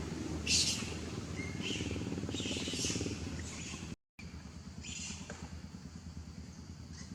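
A small engine runs steadily with a low pulsing hum, and short high chirps or squeaks come over it now and then. The sound cuts out completely for a moment about four seconds in.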